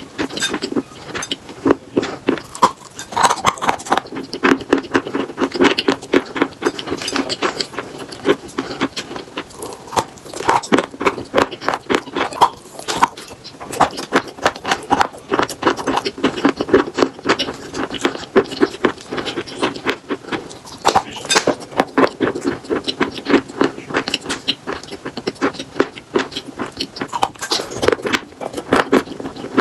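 Chalk with paste being bitten and chewed: a dense, unbroken run of crisp crunches and crackles.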